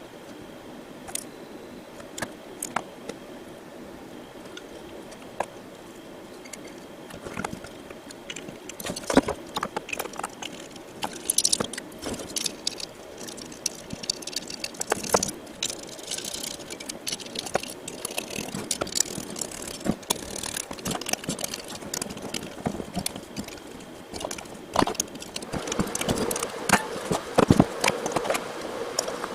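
Diesel heater parts being handled and fitted back together: irregular clicks, taps and light knocks of the metal and plastic pieces, getting busier about eight seconds in.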